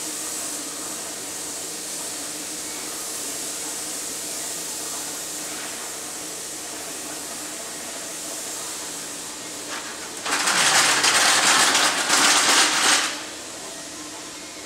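Compressed air from paint-spraying equipment hissing steadily, then a much louder rush of air for about three seconds a little after the middle, stopping sharply.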